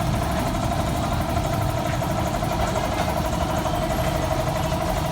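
An engine running steadily at an even speed, with a constant whine over its noise.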